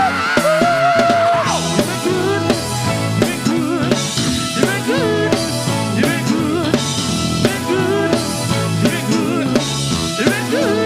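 Live gospel band playing an instrumental groove on drum kit, with bass drum and snare keeping a steady beat under pitched instrument lines. A held note fades out about a second and a half in.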